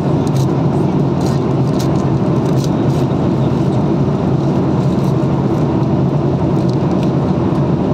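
Airliner cabin noise: a steady, loud, low drone with no change in level, and a few faint light clicks over it.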